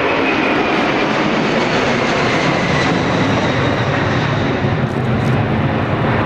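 Jet cargo aircraft's engines, a loud steady rush with a faint high whine, as the plane passes close by on landing or take-off.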